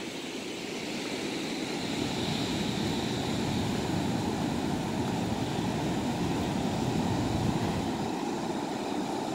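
Big surf breaking on the beach: a steady rushing roar that swells gently and eases again.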